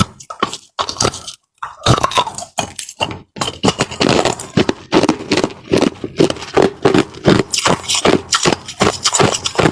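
Frozen ice being bitten and chewed close to the microphone: a dense run of sharp, irregular crunches and cracks, with two brief pauses early on before the chewing picks up again.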